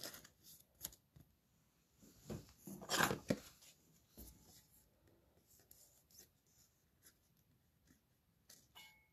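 Soft rustles and clicks of a trading card being handled against plastic, loudest in a short burst about three seconds in, otherwise quiet.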